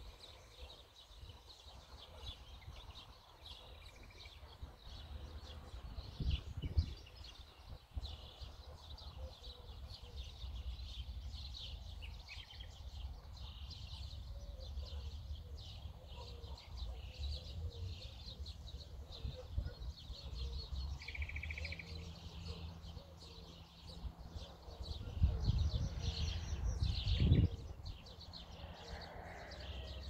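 Many small birds singing and chirping together, a dense chorus of short high calls and trills. A low rumble runs underneath and swells briefly about six seconds in and again near the end.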